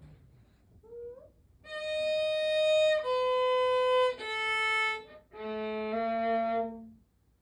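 Short instrumental music phrase: four held notes stepping downward one after another, the last and lowest held longest.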